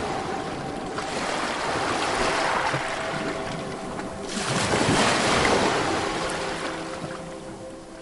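Ocean surf: waves breaking and washing up the shore, one swell about a second in and a larger one at around four seconds that peaks and then fades away.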